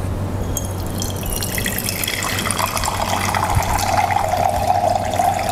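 Water running from the plastic tap of a homemade water filter into a glass beaker, filling it, the splashing growing stronger about two seconds in, over a steady low hum.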